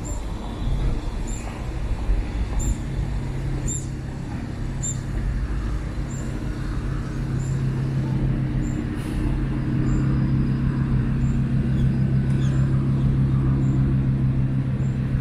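Street traffic in which a large vehicle's engine runs steadily, a low hum that gets louder in the second half. Faint high ticks repeat about every three-quarters of a second.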